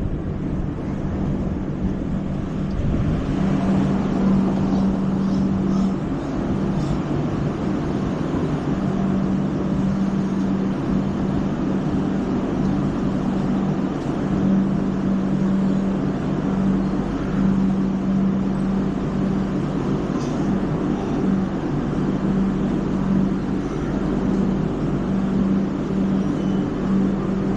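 LHB passenger coach running along the track: a steady rumble of wheels on rail with a constant low hum.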